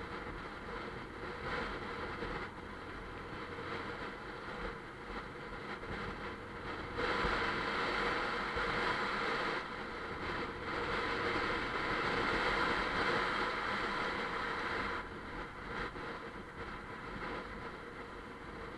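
Bajaj Pulsar 150's single-cylinder engine running under way, mixed with steady wind and road noise. It grows louder for several seconds in the middle, then settles back.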